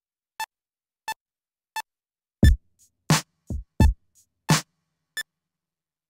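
Sampled drums played on a Korg microSAMPLER: a few kick-drum and snare hits over a steady metronome click, about one click every 0.7 seconds. The drums come in about halfway through, and the clicks and drums stop shortly before the end.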